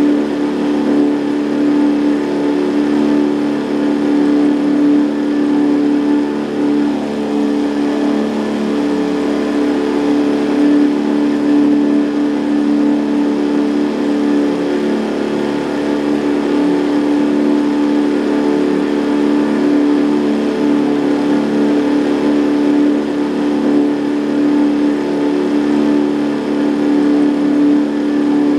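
Boat outboard motor running steadily at a constant pitch.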